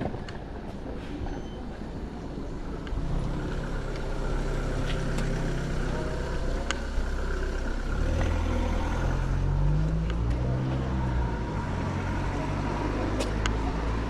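A motor vehicle's engine running close by, coming in about three seconds in and getting louder, its pitch rising and shifting between about eight and eleven seconds.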